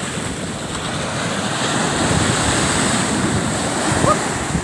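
Sea surf breaking and washing up the beach in front of the microphone, swelling a little louder in the middle.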